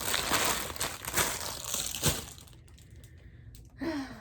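Plastic packaging crinkling and rustling as it is handled. The rustle is dense for about the first two seconds, then dies down.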